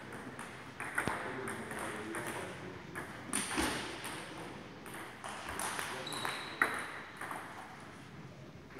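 Table tennis balls clicking on the tables and off the bats, an irregular patter of sharp ticks from rallies at several tables at once.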